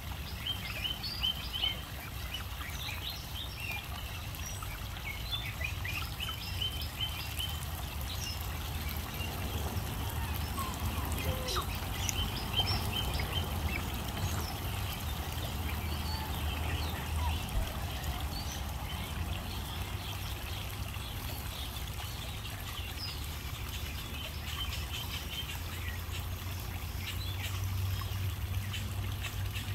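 African goslings peeping, a run of short high calls repeated in quick clusters, over a faint steady trickle of water.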